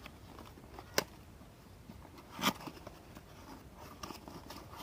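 Cardboard shipping box being pried and torn open by hand: faint rustling and scraping of cardboard, with a sharp click about a second in and a short, louder rasp of cardboard about halfway through.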